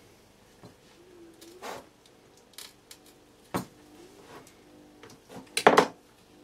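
Scattered small clicks and taps of needle-nose pliers and a soldering iron being handled against a thin wire and a quadcopter frame plate on a cutting mat, as the wire is held to a solder pad. A louder short burst of clatter or rustle comes near the end.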